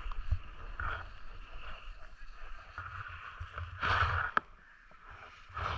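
Riding down a snow slope: edges hissing and scraping over the snow, with louder swooshes of turns, the biggest about four seconds in and followed by a sharp click, over a low wind rumble on the microphone.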